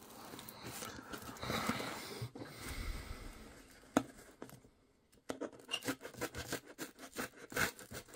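Folding pocket knife scraping and sawing through packing tape and cardboard on a parcel box: a rubbing scrape at first, a brief gap, then a run of short quick scratches.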